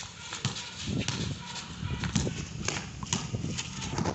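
A basketball bouncing on a concrete court as it is dribbled, an irregular series of knocks, mixed with players' footsteps.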